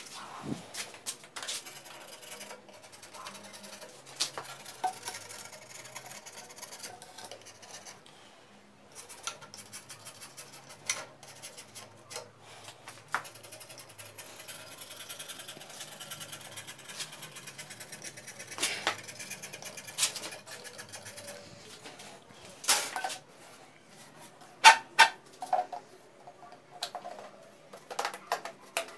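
Rigid PVC pipes and fittings being handled and pushed together, giving scattered clicks and knocks, with a few louder knocks late on.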